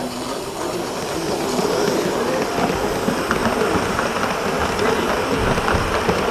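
Gauge 1 live-steam model train running close past on its track, the coaches and wagons rolling by. There is a rumbling clatter of many small wheel clicks on the rails, getting louder as the train goes by.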